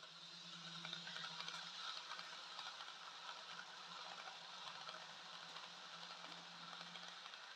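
Dapol N gauge HST model train running past on the track: a faint steady electric motor hum with the fine rattle of small wheels over the rails. It is loudest about a second or two in and fades near the end.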